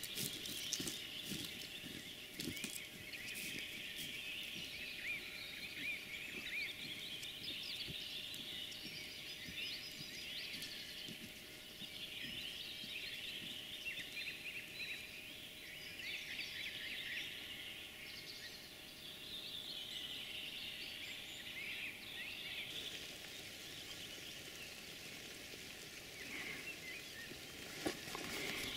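Many songbirds singing at once, a dense chorus of overlapping high chirps and trills from the forest edge, with a faint low rustle underneath.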